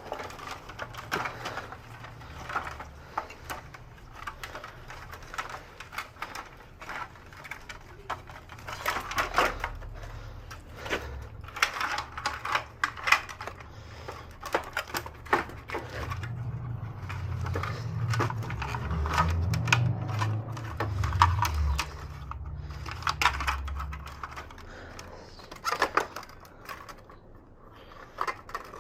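Irregular clicks, taps and small knocks of hands working with tools and small parts, with a low hum for several seconds past the middle.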